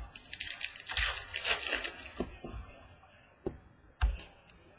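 Baseball trading cards being handled and slid against one another, with a stretch of crinkly rustling in the first two seconds. After that come a few scattered clicks and a soft, low knock about four seconds in.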